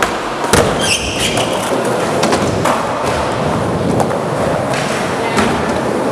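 Skateboards in a large indoor skatepark hall: a loud board landing thud about half a second in, then scattered further thuds and clacks over a steady rumble of wheels rolling, all loud and echoing.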